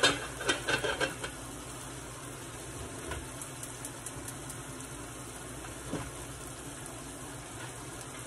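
A few metal clatters from an aluminium pot lid being set in place in the first second, then the steady sizzle of chicken breast strips frying in a skillet.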